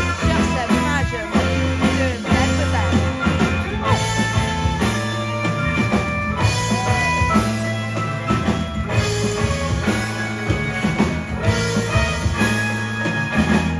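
Live band playing upbeat rock music on electric guitars, drum kit and keyboard, with a steady beat.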